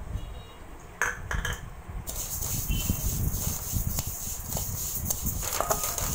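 White sesame seeds being stirred in a dry metal kadai as they roast, with the spatula scraping the pan and the grains rattling against the metal. There are a couple of knocks about a second in, then a steady scratchy rustle full of small clicks.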